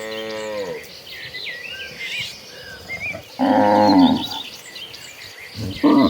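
Cattle mooing: a moo trailing off and falling in pitch at the start, a loud moo about three and a half seconds in, and another starting just before the end.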